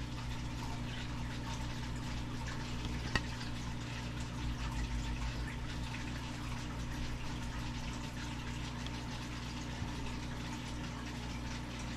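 Quiet, steady room noise with a low electrical hum, and a single light click about three seconds in as a hard plastic graded card slab is handled.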